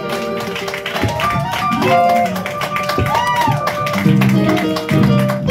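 Music playing, with a plucked guitar prominent.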